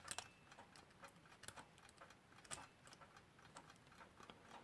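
Faint mechanical clock ticking, about two light ticks a second.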